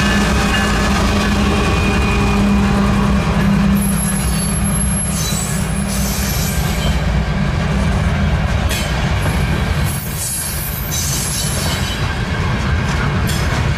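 Freight train cars rolling past on the rails with a steady low rumble, and bursts of high-pitched wheel squeal coming and going from about four seconds in.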